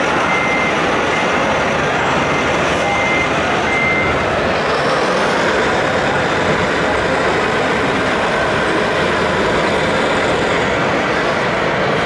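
Radio-controlled scale trucks running with a steady, dense engine-like noise. Short high beeps like a truck's reversing alarm repeat through the first four seconds, then stop.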